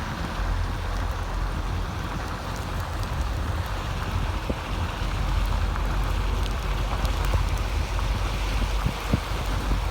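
Heavy rain falling steadily: a dense hiss with scattered sharper drop ticks over a steady low rumble.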